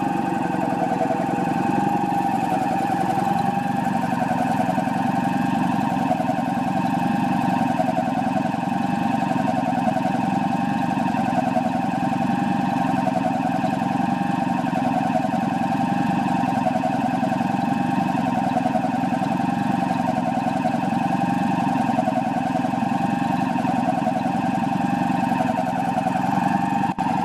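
Homemade air compressor built on a ZIL truck compressor, driven by an electric motor at about 1000 rpm, running steadily while it pumps up its receiver near the end of a performance test. A steady running hum with a high, slightly wavering whine over it.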